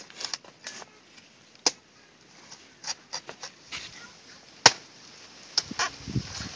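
Cleaver chopping into the fibrous husk of a green coconut: about ten sharp, irregular strikes, the loudest a little past halfway through.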